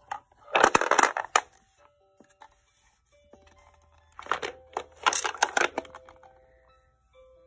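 Wooden shape sorter cube being turned over by hand, the loose wooden shape pieces inside knocking and rattling against its walls. There are two bursts: about a second in, and a longer one from about four to six seconds in.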